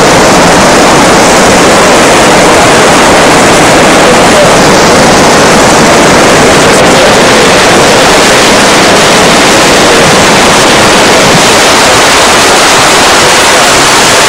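Fast-flowing river water rushing loudly and steadily, an unbroken wash of noise with no breaks.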